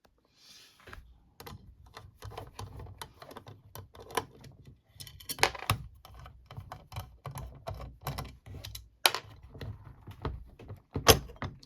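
Small metal parts of a lever safe lock clicking and clattering as it is taken apart by hand, with a few louder knocks in between.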